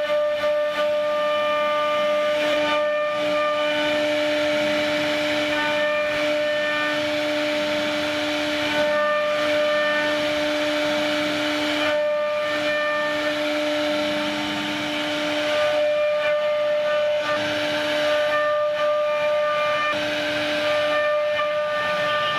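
CNC router spindle whining steadily as its bit carves a relief pattern into a solid wood door panel, with a hiss of cutting over the whine.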